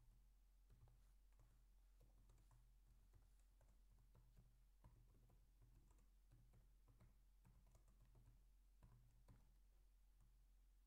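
Faint typing on a computer keyboard: irregular quick key clicks while a line of text is typed, over a low steady hum.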